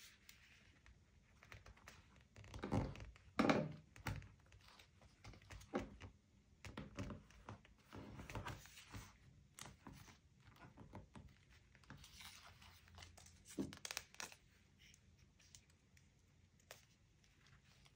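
Paper being handled up close for journaling: irregular rustling, crinkling and tearing with small taps and soft thumps. The louder thumps come around three seconds in and again near fourteen seconds.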